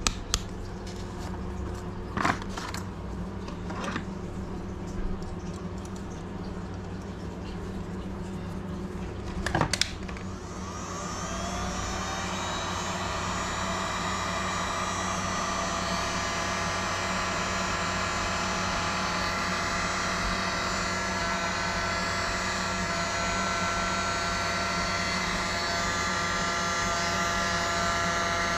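A few clicks and knocks of small tools being handled, then about ten seconds in an electric heat gun switches on and runs steadily with a whirring hum, heating a lead jig head for powder painting.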